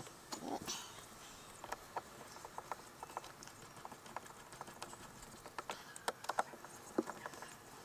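Light, scattered clicks and taps of hand work on fittings, tubing and a screwdriver inside a fibreglass RC boat hull.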